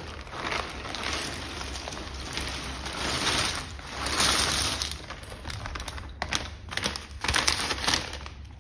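1000-piece cardboard jigsaw puzzle poured out of its plastic bag onto a wooden table: a continuous rattling stream of pieces with the bag crinkling, loudest about three to four and a half seconds in. Near the end it breaks into scattered clicks as the last pieces are shaken out.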